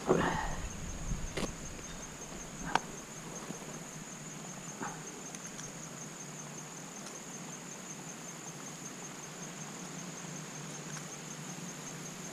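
A steady, high-pitched insect trill, pulsing evenly, with a few short knocks and rustles in the first five seconds, the loudest right at the start.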